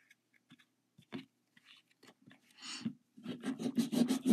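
A few faint light clicks, then from about three seconds in a cotton pad scrubbed rapidly back and forth over a metal nail-stamping plate, a fast run of scratchy rubbing strokes as polish is wiped off the plate.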